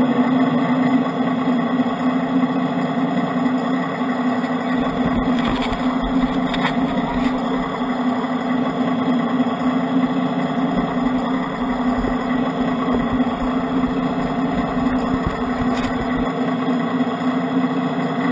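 Radio-controlled scale trucks running: a steady, even, engine-like idling hum, with a few faint clicks about five, seven and sixteen seconds in.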